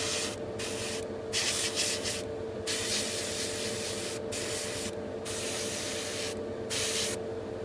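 Airbrush hissing as it sprays thinned red paint onto a small plastic model part, in about seven short bursts with brief pauses between them. A steady hum from the spray booth's extractor fan runs underneath.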